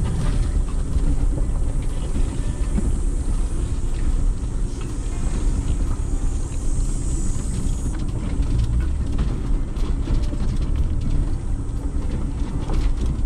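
Ford Bronco driving slowly over a rocky dirt trail, heard from inside the cabin: a steady low rumble of engine and tyres, with many small rattles and knocks as the truck bounces over the ground.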